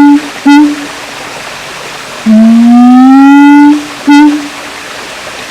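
Siamang calling: a long hoot rising in pitch for about a second and a half, followed by a short clipped note, repeated twice over a steady background hiss.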